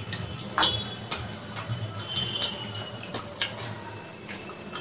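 Scattered light clicks and taps of a metal spoon against a glass chutney bowl and steel plates, with a brief faint ring about halfway through.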